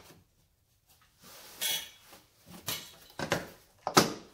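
Plastic door sill trim plate of a 2007 Chevy Silverado being pulled up off the cab threshold: a few short scrapes and clicks, then a sharp snap about four seconds in as its retaining clips let go.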